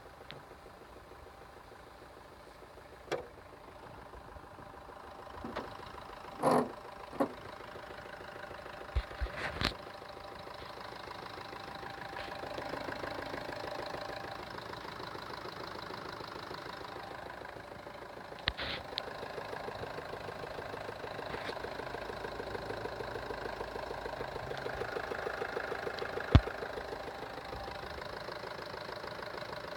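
Vehicle engine running at idle with a knocking noise, getting louder about a third of the way in and swelling slightly twice. A few sharp clicks and thumps stand out, the loudest near the end.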